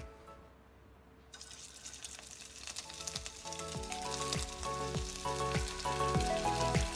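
Mutton meatballs frying in oil in a steel kadai: a crackling sizzle starts about a second in as the first ball goes into the hot oil, and it grows as more are added. Background music with a steady beat comes in about halfway through.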